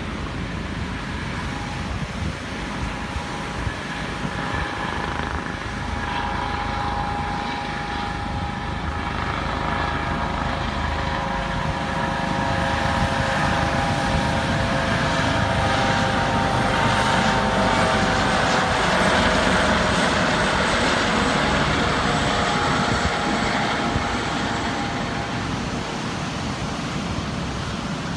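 U.S. Coast Guard helicopter flying past, its engine and rotor sound building to a peak about two-thirds of the way through, then fading as its whine drops slightly in pitch.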